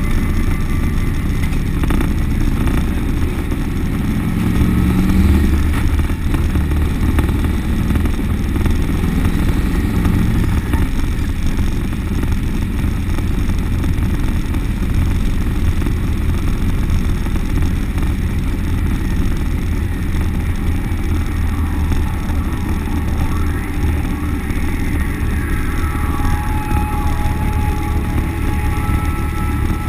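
Turbocharged LT1 V8 of a 700-plus-horsepower street truck cruising, heard from inside the cab: a steady low exhaust drone that swells briefly about five seconds in and again around ten seconds.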